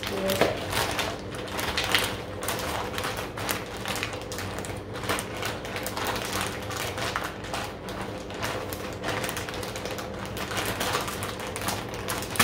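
Hands handling food packaging on a kitchen counter: irregular crinkling, rustling and clicking, over a faint steady hum.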